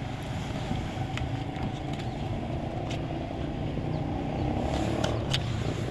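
A motor engine running steadily with a low hum, growing slightly louder, with a few light clicks.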